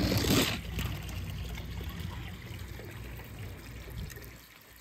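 Water running down a wet plastic slide, with a brief louder rush about the first half-second, then a steady trickle that fades out near the end.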